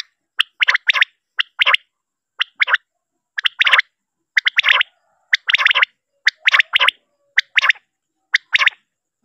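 Common quail calling in a played-back recording, a lure call for quail hunting. Each phrase is a short pip followed by a quick rattling note, repeated about once a second.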